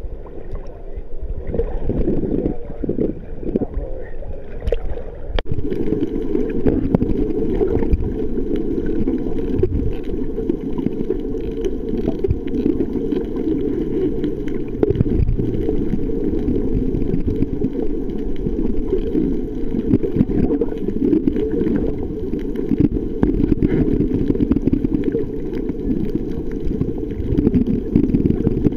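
Muffled, steady rushing and gurgling of water heard through a camera's underwater housing. It sets in after a sharp knock about five seconds in, as the camera goes below the surface.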